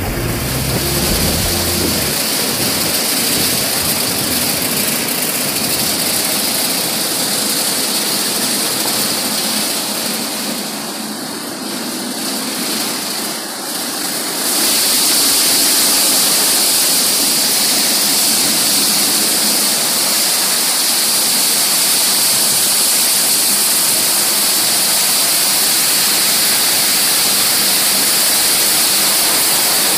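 Automatic car-wash machine running: rotating brushes and water spray make a steady rushing hiss. It dips slightly past a third of the way in, then turns louder and hissier from about halfway.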